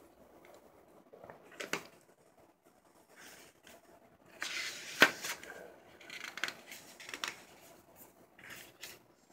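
Pages of a small hardcover sketchbook being turned and handled: scattered paper rustles and flicks, with a couple of sharper snaps, the loudest about five seconds in.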